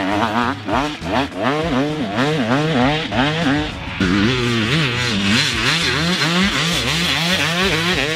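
250 two-stroke motocross bike's engine being ridden through whoops in fourth gear. The revs rise and fall about twice a second, once for each whoop.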